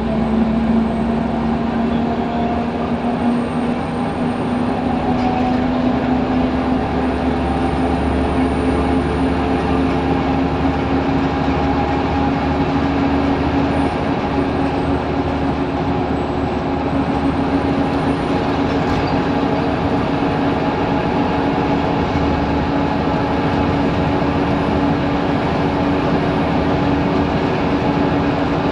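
Scania L94UB Wright Solar single-deck bus heard from inside while under way: a steady diesel engine and drivetrain drone over road and tyre noise. A whine in it rises slowly in pitch throughout.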